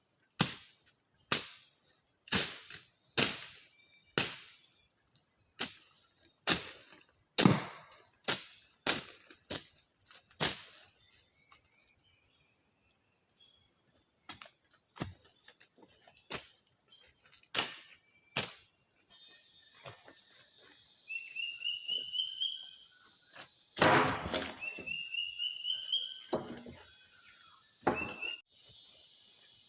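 Repeated sharp blows on wood, about one a second for roughly ten seconds, then a few scattered strikes. A steady high insect drone runs under them, and short rising whistled bird calls come twice near the end.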